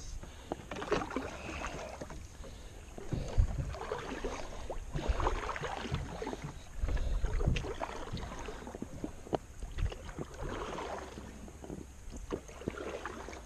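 Kayak paddle strokes: the blades dipping and splashing in the water in uneven swells, with a few sharp knocks in between.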